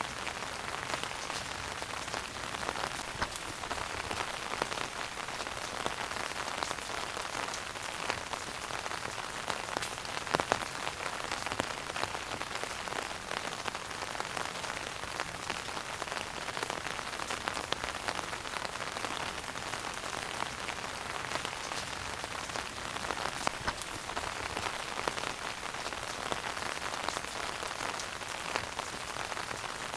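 Wood fire burning in a fireplace: a steady hiss with frequent small crackles and pops, and one louder pop about ten seconds in.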